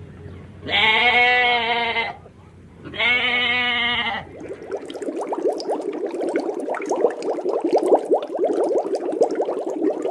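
Sheep bleating twice, two long wavering calls, followed by a fast, rough rattling sound that continues to the end.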